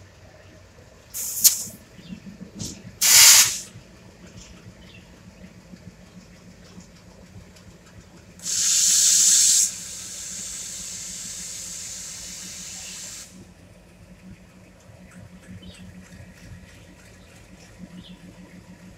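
Compressed air venting from a WDM-series diesel locomotive: two short sharp blasts of hiss in the first few seconds, then a louder blast about eight seconds in that drops to a softer hiss and cuts off suddenly around thirteen seconds. The locomotive's diesel engine idles underneath as a steady low hum.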